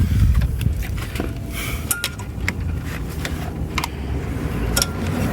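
Scattered metallic clicks and clinks of tools and brake parts being handled during reassembly of a brake hose, over a steady low rumble.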